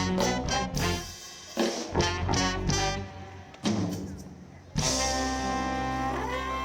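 Live soul band with a horn section (trumpets, trombone) playing a run of short, punchy ensemble hits, then holding one long chord from about five seconds in.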